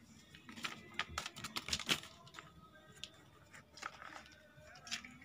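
A kitten pawing at and biting a sheet of paper, with crinkling and tearing of paper and a plastic bag: a run of short, sharp rustles and rips, densest in the first two seconds, with more a few seconds later.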